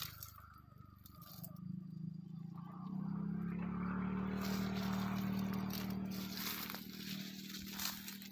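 An engine running steadily out of sight, its hum growing louder a few seconds in and easing off again near the end, like a vehicle passing by.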